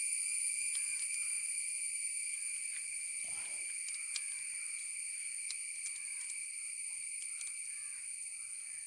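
Steady high-pitched insect chirring throughout, with scattered light metallic clicks as a nut on the mixer-grinder motor is tightened.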